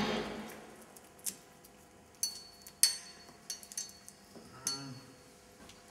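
Scattered sharp clicks and light knocks of hard plastic parts being handled as a corrugated breathing hose is fitted onto a helmet's fitting.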